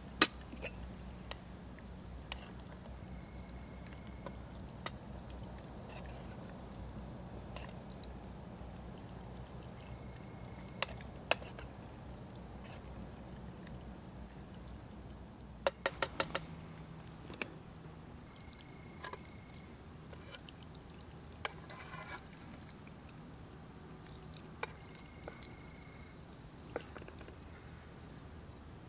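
Wood campfire crackling, with scattered sharp pops and a quick run of snaps about halfway through.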